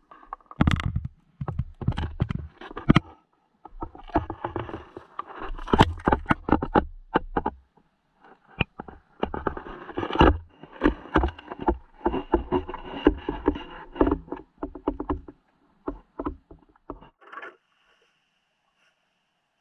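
Muffled knocks, scrapes and water sloshing around an action camera held underwater beneath lake ice. They come in irregular bursts and die away to a few clicks near the end.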